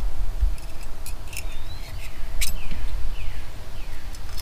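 Birds chirping in the background, a few short falling calls, over a steady low rumble. Several sharp clicks from a folding stainless-steel utensil multi-tool being handled and opened.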